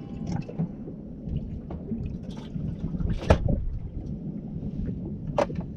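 Wind rumbling on the microphone of a boat at sea, with water noise and a few sharp knocks, the loudest about three seconds in.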